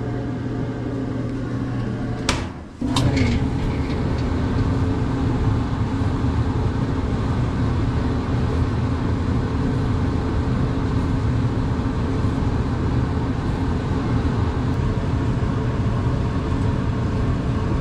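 Whirlpool electric dryer running: a steady motor-and-drum hum with no squeaks. Two sharp clicks come about two seconds in, with a brief dip, and then the running carries on.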